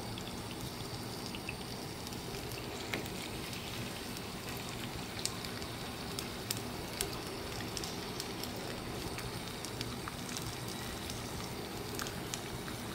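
Marinated chicken breasts sizzling in hot oil in a grill pan: a steady frying hiss with occasional small pops.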